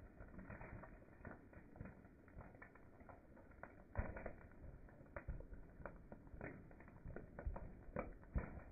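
Car tyre slowly rolling onto a frosted cake on asphalt: faint, irregular crackles and creaks as the cake and its foil board are crushed, with a sharper crack about four seconds in.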